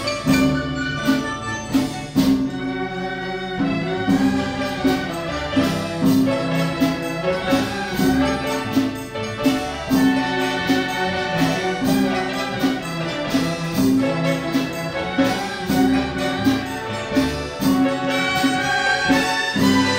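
A Chinese orchestra playing an instrumental piece, with plucked pipa and ruan and a dizi flute over a steady drum beat.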